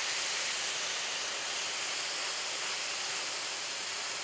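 Marinated chicken strips sizzling steadily in avocado oil on a hot flat-top griddle.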